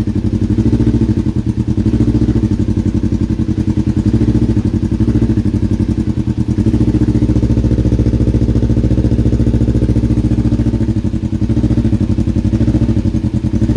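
Kawasaki Ninja 300's parallel-twin engine running steadily at a low, even speed.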